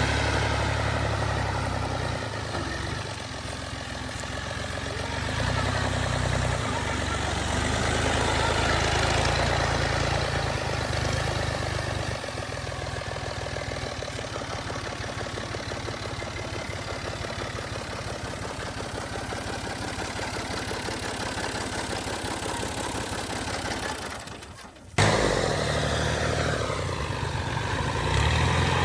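Combine harvester's diesel engine and threshing machinery running steadily. It fades and drops out briefly near the end, then comes back.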